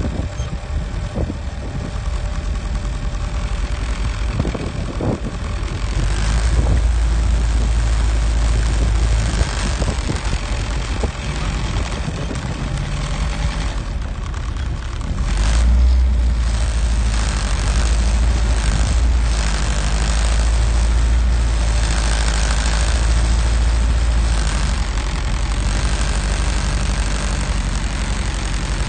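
World War II Willys Jeep's four-cylinder engine running as the Jeep drives slowly over a muddy off-road track, heard from on board, with a deep rumble that grows louder about six seconds in and again around fifteen seconds.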